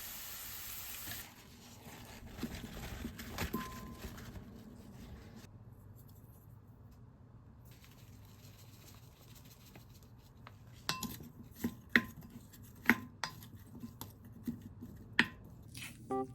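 Frying sizzle that cuts off about a second in, then soft kitchen handling and, in the last five seconds, a run of about seven sharp clinks of dishes and utensils with a short ring after each.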